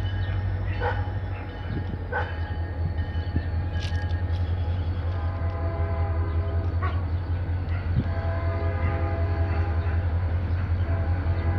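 A nearby engine idles with a steady low drone, and a dog barks twice in the first couple of seconds. From about five seconds in, an approaching diesel locomotive sounds its chime horn in long blasts.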